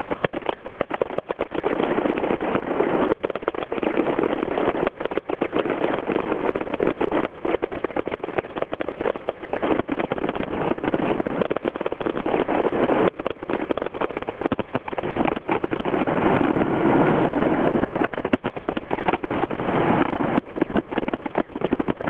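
Fireworks display going off, a dense, continuous run of crackles and pops.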